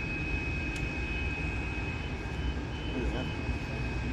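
Boeing 747-400F's four jet engines running on the ground: a steady low rumble with a high whine held at one pitch.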